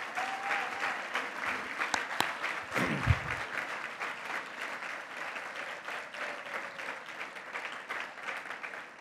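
Audience applauding, the clapping gradually dying down toward the end.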